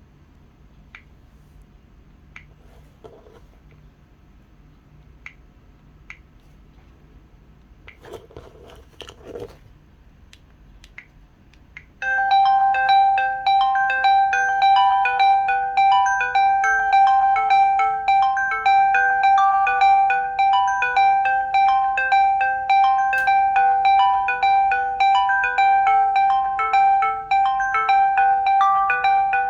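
LG Wine Smart phone's jazz alarm ringtone playing through its speaker, recorded on another phone: a bright, melodic tune of short notes over one held note. It starts suddenly about twelve seconds in, after a few faint clicks and a brief rustle.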